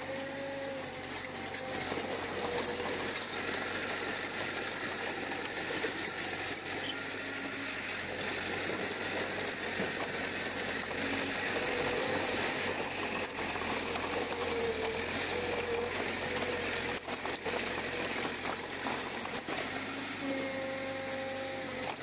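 Komatsu crawler bulldozer's diesel engine running steadily under a constant mechanical clatter, with a thin wavering whine that comes and goes.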